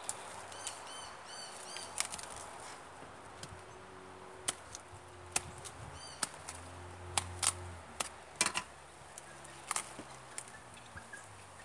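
A cabbage being cut with a knife: irregularly spaced sharp, crisp snaps and cracks. A bird chirps briefly about a second in.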